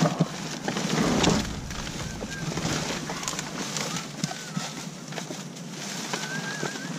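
Plastic bags crinkling and rustling while styrofoam food containers and other trash are pushed around by hand, with short knocks and clicks, loudest about a second in.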